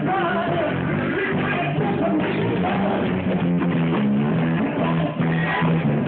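Live band playing rock music: electric bass and drum kit, with a voice singing over them.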